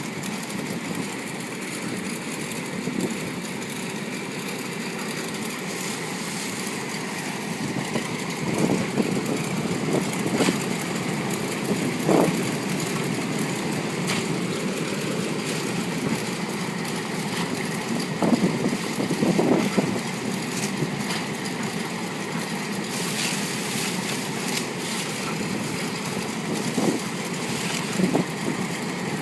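Air-bubble vegetable washing machine running: a steady machine noise, with a few louder rough swells now and then.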